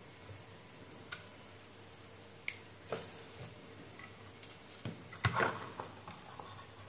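Scattered small clicks and knocks from hands handling a bare instrument-cluster circuit board and its jumper wires, with a louder short cluster of knocks a little after five seconds in.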